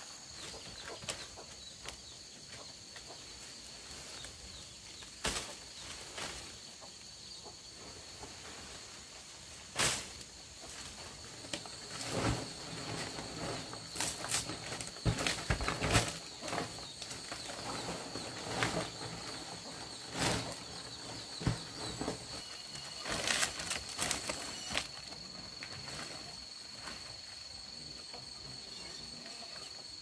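Scattered knocks and clatter from bamboo building work, busiest through the middle, over a steady high-pitched drone.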